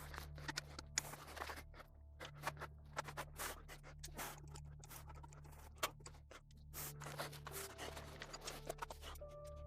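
Metal clicking, tapping and scraping of hand tools on a Chevy 350 cylinder head during teardown, with two sharper knocks, about a second in and near six seconds. Low droning background music runs underneath.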